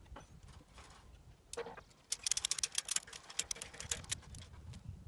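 Ratchet strap being worked: a fast run of sharp clicks lasting about two seconds, after a single knock about a second and a half in.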